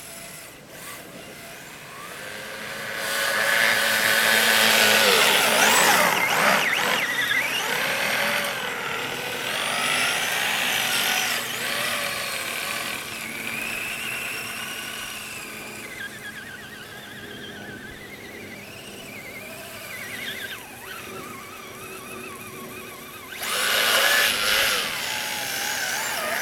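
Kyosho Blizzard RC snowcat's 12-turn brushed electric motor and gears whining, the pitch rising and falling as the throttle is worked. It is loudest about three to seven seconds in and again near the end.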